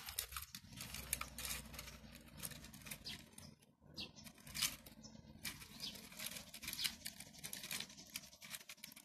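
Handling noise: irregular scratchy rustling and light clicks as the recording phone is moved around the opened stereo.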